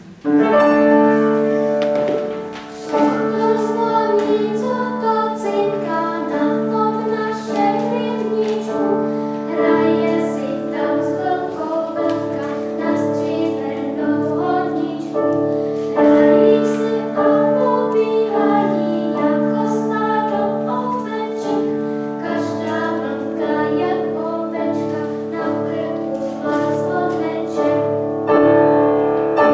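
Children singing a song with upright piano accompaniment; the piano and voices come in together right at the start and run on without a break.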